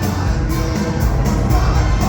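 Live band playing an instrumental passage of a rock song: a heavy bass and drums keeping a steady beat of about two hits a second.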